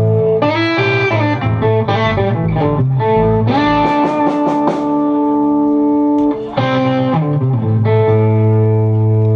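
Live blues-rock band music: a distorted electric guitar plays long held notes and short quick runs over bass guitar.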